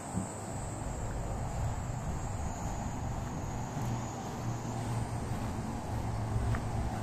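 Insects shrilling steadily in one high, continuous tone, over a low uneven rumble.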